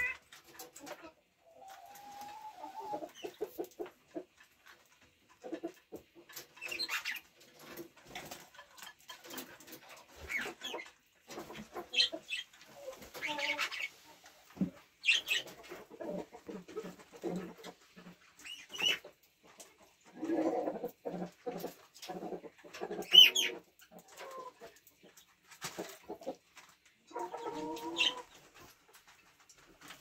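Hens clucking in short repeated runs, mixed with the short high chirps of budgerigars.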